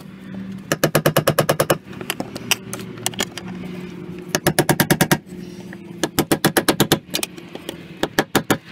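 Rapid runs of sharp taps, about ten a second, as a screwdriver is struck against the tabs of a BMW E46 fuel pump lock ring to turn it loose. There are four runs, with a steady low hum underneath.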